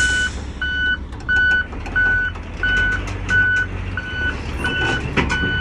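A vehicle backup alarm beeps evenly, about three beeps every two seconds, over the steady low rumble of a heavy vehicle's engine. Scattered short knocks come through, with a louder burst of noise about five seconds in.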